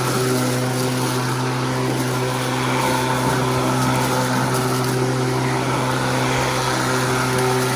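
Sun Joe 24V-X2-17LM 48-volt cordless electric lawn mower running, a steady hum and whir from its motor and spinning blade that holds one pitch throughout.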